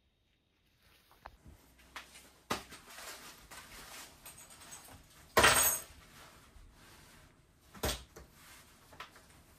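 Rustling of clothing and small objects being handled and set down on a wooden dresser, with a few sharp knocks and one louder clatter about five and a half seconds in. The first second is almost silent.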